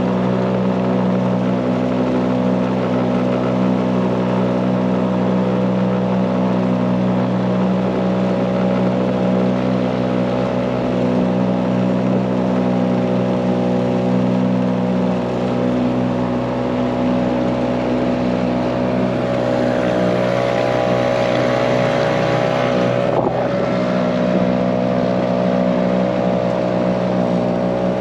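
Mercury 2.5 hp four-stroke outboard motor running steadily at cruising speed, pushing a small square-stern canoe upstream.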